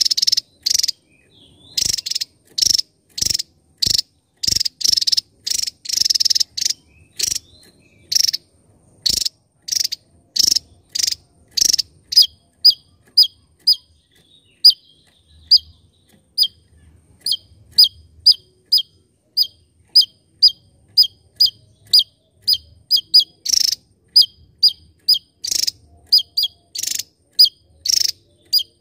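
Javan tesia singing a fast, unbroken series of short notes, about two a second. At first the notes are harsh and buzzy; about halfway through they turn into clear, high notes that flick downward, with buzzy notes mixed in again near the end.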